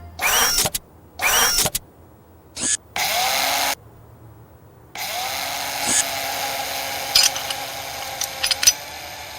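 Cartoon sound effects: two quick rising whooshes, a short burst, then a steady mechanical whirring with a few clicks starting about halfway through.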